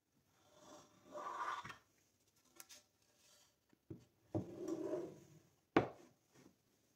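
Plywood parts being handled: two scraping, rubbing slides of wood on wood, a few light scuffs, and one sharp knock about six seconds in.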